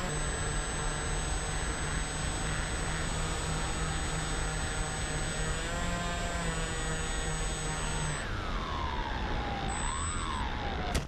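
Twin electric motors on an RC Skywalker plane running with a steady whine over wind rush. About eight seconds in the motors cut, and a single falling whine follows as the propellers spin down in the glide. A sharp knock comes right at the end.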